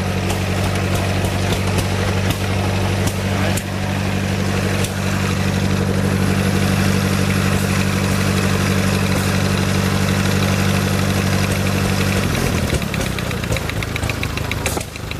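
Model T Ford four-cylinder engine powering a reciprocating saw, running at a steady speed. About twelve seconds in, its pitch drops and wavers, and a fast, even ticking comes in near the end.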